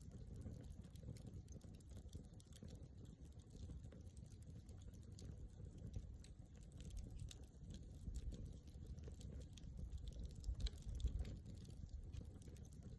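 Wood campfire crackling: scattered small pops and snaps over a low steady rumble, with a couple of louder snaps near the end.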